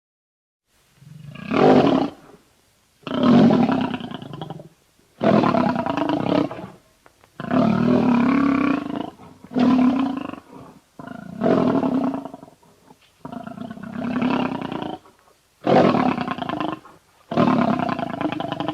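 Carnotaurus creature roar sound effects: a run of about nine separate roars, each one to two seconds long, with short pauses between them.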